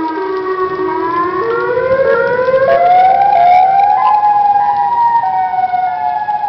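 Thunderstorm warning siren sounding loudly: its tone stays low for about a second and a half, climbs in small steps until about four seconds in, then holds high and sinks slightly.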